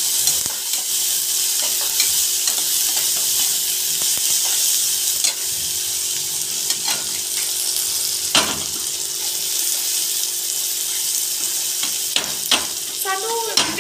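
Chopped onions and tomatoes sizzling as they fry in oil in a pan, with a spatula scraping and knocking against the pan now and then as the spiced masala is stirred.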